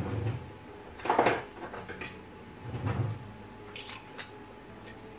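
Spoon and fork knocking and scraping against a glass baking dish and a plate as a portion of baked potato-and-minced-meat gratin is cut and served. There are a few separate knocks, the loudest about a second in, another near three seconds, and a light clink near four seconds.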